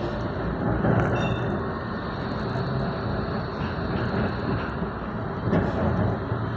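Berlin tram running along the street, heard from inside the car: a steady rumble of wheels on rails and running gear, with a couple of short knocks, about a second in and near the end.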